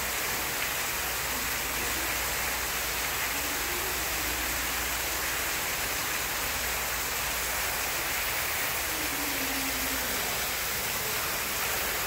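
Indoor fountain's central water jet and ring of spray nozzles splashing down into its tiled pool: a steady, even rush of falling water.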